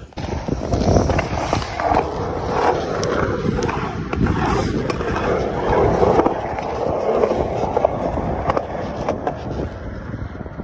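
Skateboard wheels rolling on concrete, a steady rumble with a few sharp clacks of the board.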